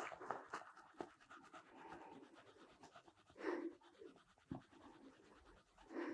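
Quiet room with faint breathing and small rustles of movement, a short breath about three and a half seconds in and a single sharp click about a second later.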